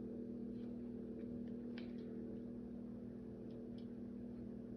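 Faint, scattered light clicks of small plastic toy-car parts being handled and fitted together, over a steady low hum.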